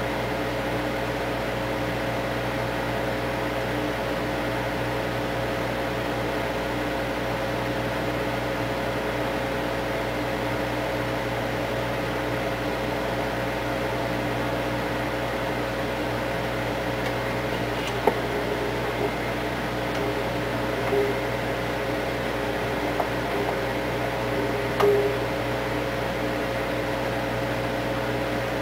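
Steady hum and hiss from a 1925 Oriole Model 7B radio's loudspeaker as it is tuned across a stretch of the AM band with no station coming in. A few faint short sounds break in during the last ten seconds or so.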